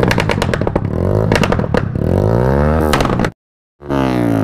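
Yamaha R15S motorcycle's single-cylinder engine revved up and down through a modified exhaust, with several sharp pops from the fire-shot exhaust flame kit firing. It cuts off abruptly about three seconds in and starts again half a second later.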